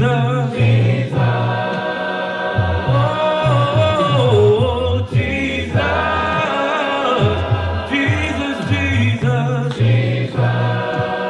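A choir or congregation singing a slow gospel song, with long held notes that rise and fall gently.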